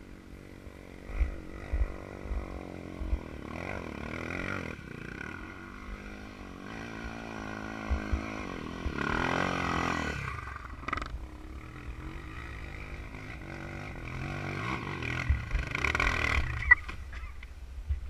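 Small single-cylinder four-stroke trail motorcycles running, the engine note rising and falling several times as they rev and ease off, with wind thumping on the microphone.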